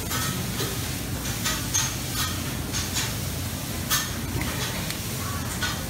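Steady buffet-room background noise with a low hum, broken by scattered light clinks of metal serving tongs and dishes.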